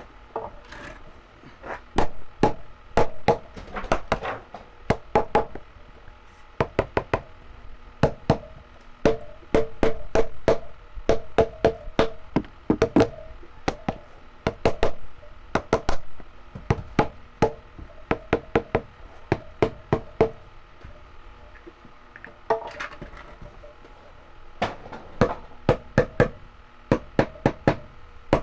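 Sharp knocks or taps struck in quick runs of several at a time, with short pauses between runs, over faint background music.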